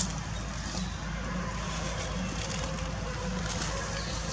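Steady low outdoor rumble with faint scratchy crackling over it.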